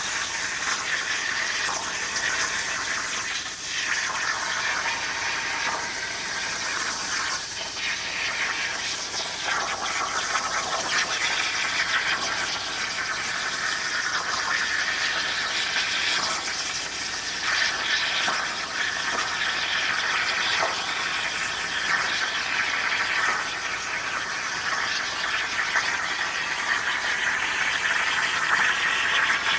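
CNC plasma cutter torch cutting metal: a steady hiss from the plasma arc and its air, with a faint whine running under it.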